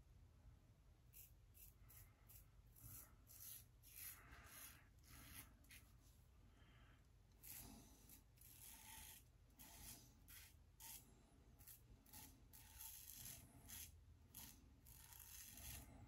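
Shave It Shadow double-edge safety razor with an RK chromium blade cutting two and a half days of stubble through lather on the first pass: a faint series of short scratchy strokes, one or two a second, at irregular intervals.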